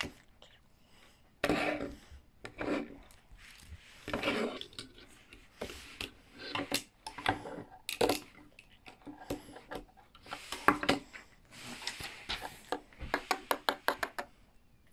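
Plastic LEGO pieces being handled and pressed together: uneven rubbing and scraping with scattered clicks, then a run of quick clicks near the end.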